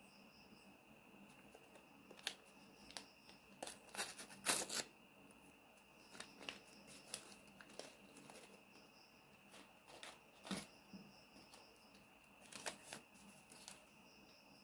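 A paper packet being torn open and crinkled by hand, in irregular bursts of tearing and rustling, loudest about four to five seconds in. A faint, steady, high-pitched insect chirping runs underneath.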